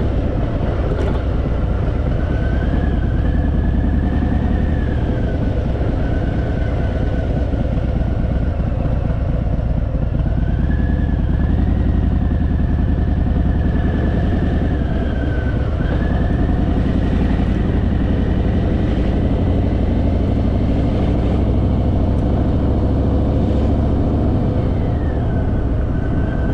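Harley-Davidson Fat Boy's V-twin engine running under way, a steady loud drone with its note rising and falling a few times as the speed changes.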